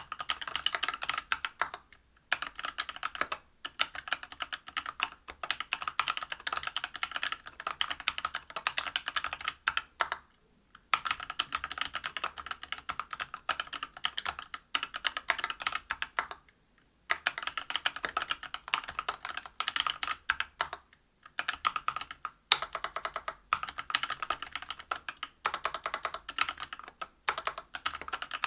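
Typing on a Whale 75 mechanical keyboard with stock, unlubed Everglide BeesWax 67g linear switches in a brass plate under Geekark PBT keycaps. The keystrokes come in fast, continuous runs of clacks, broken by several brief pauses.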